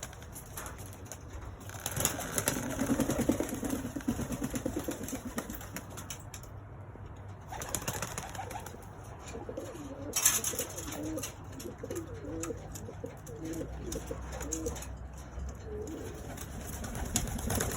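Pigeons cooing in a loft, bouts of low warbling coos, with a sharper rustle or knock about ten seconds in.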